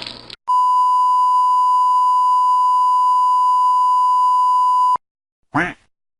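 Censor bleep sound effect: one long electronic beep at a single steady pitch, lasting about four and a half seconds and cutting off sharply. A brief chirping effect follows near the end.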